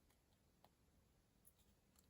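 Near silence: room tone with two faint small clicks.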